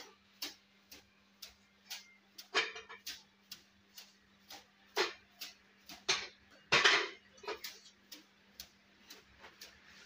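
Metal clinks and scrapes from a refrigerator compressor's cut-open steel shell being handled and its top half shifted off, loudest about seven seconds in. Under them, a regular ticking about twice a second and a low steady hum.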